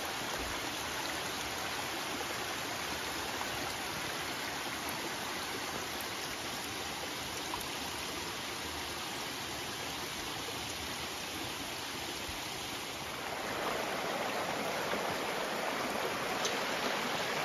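Steady rush of a rocky forest stream flowing and cascading over stones. About thirteen seconds in it becomes louder and fuller: a wider, shallow stream being forded.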